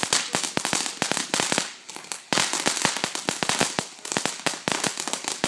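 TNT Fireworks Short Stack Fountain firework crackling rapidly over a hiss of burning, with a brief lull about two seconds in before the crackling picks up again.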